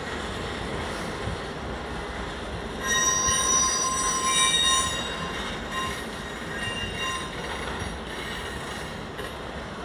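Huron and Eastern Railway freight train's cars rolling past with a steady rumble from the wheels on the rails. About three seconds in, a high-pitched metal squeal from the wheels rises over it and lasts a few seconds before fading.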